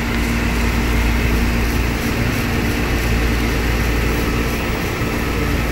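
Residential air-conditioning condensing unit running steadily: reciprocating compressor hum under the condenser fan's steady rush of air, shortly after start-up while the system is still pulling down.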